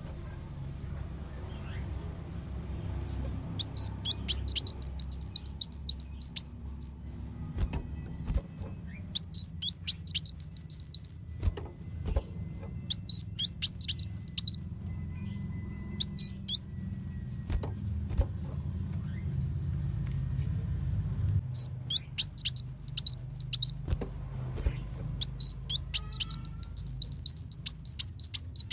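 Kolibri wulung sunbird singing: bursts of rapid, very high, sharp chattering notes, each lasting about one to three seconds, repeated six times with short pauses between them. A faint low hum runs underneath.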